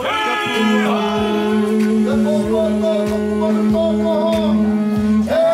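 Men's voices singing a Māori chant with a long held low note, melodic voices above it, and a steady beat of sharp taps.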